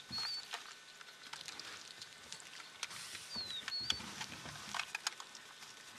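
Honey badger chewing and crunching on a snake, an irregular scatter of sharp clicks and crackles. A bird whistles a short falling note followed by a wavering one, once at the start and again a little past the middle.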